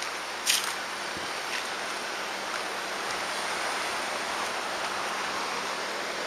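Steady wash of sea surf breaking in a rocky cove, with one brief sharp knock about half a second in.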